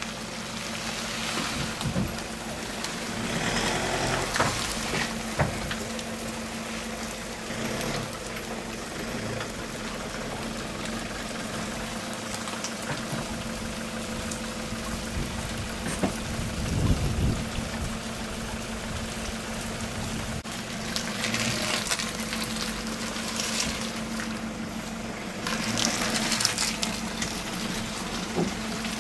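Steady rain falling on a paved driveway, swelling in a few louder spells, with a pickup's engine running as a low steady hum underneath.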